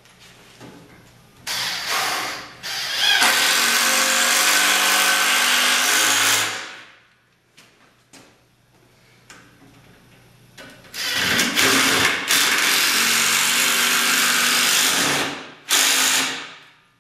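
Power drill driving screws into the log frame with a Phillips bit: two long runs of about five seconds each, then a short burst near the end.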